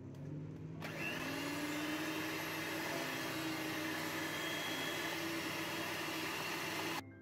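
Electric hand mixer running, its beaters creaming butter and sugar in a glass bowl. The motor whine rises as it starts, a loud steady rush joins about a second in, and the sound cuts off suddenly near the end.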